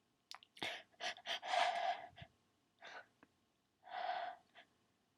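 A person's sharp, breathy gasps and in-breaths as a sneeze builds but stays stuck: a run of short gasps, with longer ones about a second and a half in and again about four seconds in.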